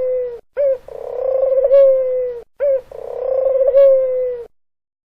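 Dove cooing: the end of one call, then two full calls in a row. Each call is a short note followed by a long coo that falls slightly in pitch, and the calling stops near the end.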